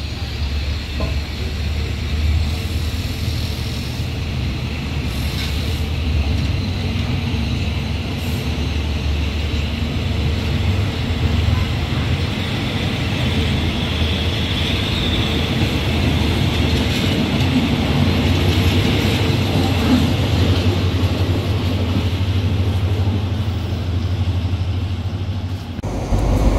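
Diesel passenger train running slowly past a station platform, with a steady low engine drone and a rolling hiss from the wheels. Near the end it cuts abruptly to a louder approaching diesel locomotive.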